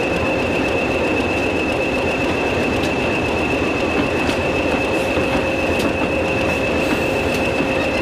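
GWR 4300 class 2-6-0 steam locomotive 7325 and its tender running past, with a dense rumble from the wheels and running gear and a steady high squeal. Sharp clicks come about every second and a half as the wheels cross rail joints.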